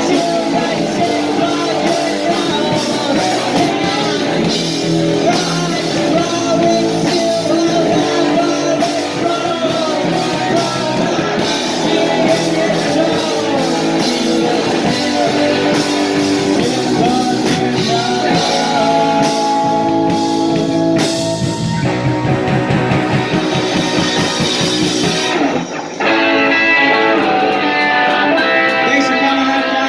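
Live rock band playing loud: electric bass, electric guitar and drum kit, with a sung vocal. Near the end the sound dips for a moment and the band comes back in without the cymbal wash.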